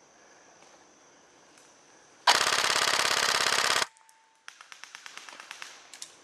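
Airsoft gun fired on full auto in a loud burst of rapid, even clicks lasting about a second and a half. About a second later comes a fainter run of rapid clicks, further airsoft fire from farther off.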